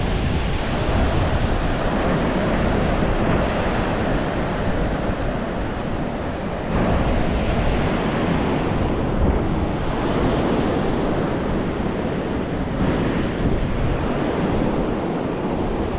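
Sea surf washing on a beach, with strong wind buffeting the microphone in a low, uneven rumble.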